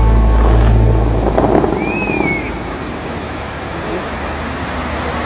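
The Dubai Fountain's show music ends about a second in, giving way to the steady rush of the fountain's falling water and spray, with crowd noise under it. A short rising-and-falling whistle comes near the middle.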